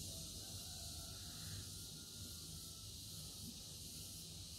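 Faint, steady room tone: a soft even hiss with a low hum underneath.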